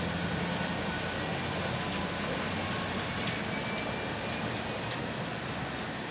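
A heavily loaded 16-axle Scheuerle modular heavy-haul trailer rolling slowly past: a steady low engine hum over the rumbling hiss of its many tyres, easing slightly toward the end.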